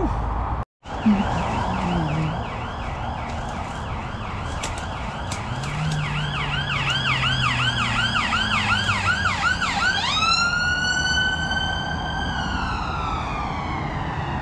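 Emergency vehicle siren on a passing road vehicle, first in a fast yelp of about three to four sweeps a second, then about ten seconds in switching to a single rising wail that holds and slowly falls. Steady road traffic noise runs underneath.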